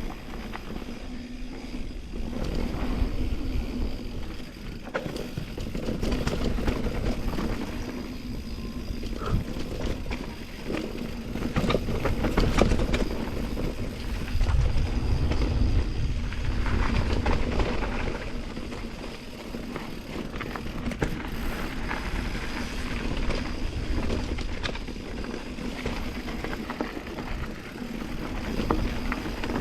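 Mountain bike riding down a dirt trail: wind buffeting the microphone over tyre rumble, with the bike rattling and clattering over bumps, most of all about twelve seconds in.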